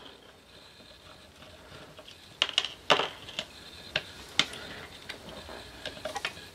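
Sharp little metal clicks and taps of small screws and a washer being handled and set down, with fingers knocking on the metal electronics box; about half a dozen clicks come close together in the middle, a few lighter ones near the end.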